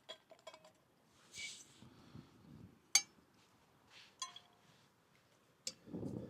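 Faint clinks and taps of a small metal camping pot being handled, with one short rush of noise about a second and a half in and a brief metallic ring near the middle. A low rumble comes in near the end.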